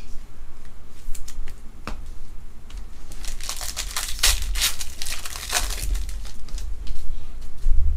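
A few light ticks of handling, then the foil wrapper of a 2020 Topps WWE Undisputed trading-card pack being torn open and crinkled, with dense crackling in the middle.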